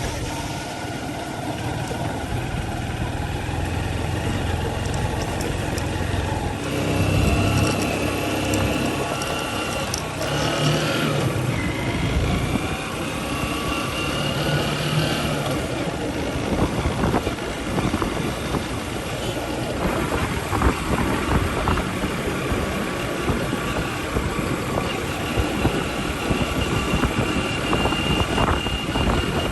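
JCB 3DX backhoe loader's diesel engine running steadily, with higher whining tones coming and going over it.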